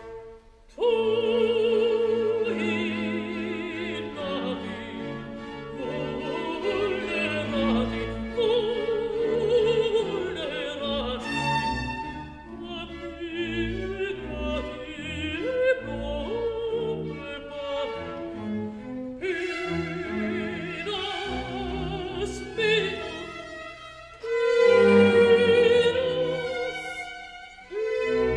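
Operatic music: a vibrato-laden voice over an orchestra with bowed strings. It briefly drops out just before the start and again near the end.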